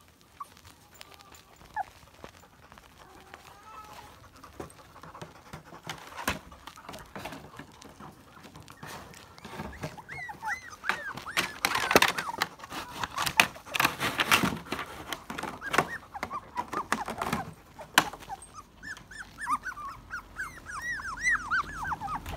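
Cockapoo puppies whimpering and squealing in short rising-and-falling cries, in runs about ten seconds in and again near the end, with a few sharp knocks in between.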